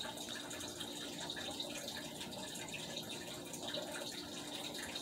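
Faint, steady background noise with a low hum and no distinct events.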